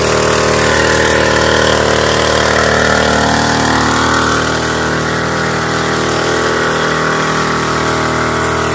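Knapsack power sprayer's small petrol engine running steadily while it pumps spray out through the lance, easing a little about halfway through.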